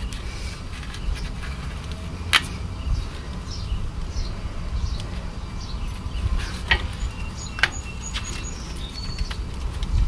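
Front brake pads and their retaining clips being pulled out of the caliper bracket: a few separate sharp clicks, the loudest about two seconds in, over a steady low rumble.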